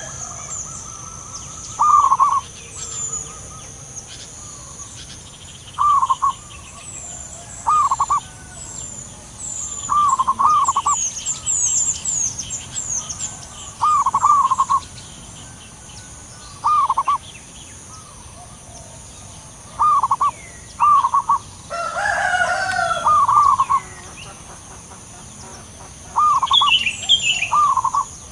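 Zebra doves calling back and forth, a male and female answering each other: short clusters of quick staccato coos come every two to three seconds. Small birds twitter high in the background over a steady high hiss, with a louder burst of other bird calls a little past the middle.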